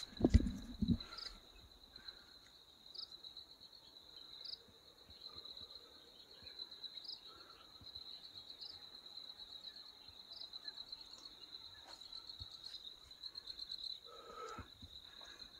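Steady high-pitched chirring of insects, with short higher chirps every second or two. A brief low rumble in the first second.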